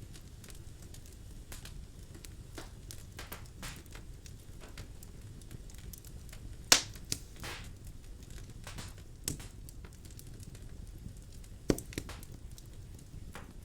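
Birch logs burning in a fireplace, crackling with scattered pops over a low steady rumble of the flames; two loud sharp pops stand out, one about halfway through and one near the end.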